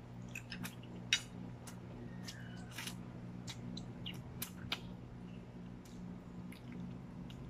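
A person slurping spaghetti strands and chewing, with many short wet mouth and lip smacks scattered throughout, over a steady low hum.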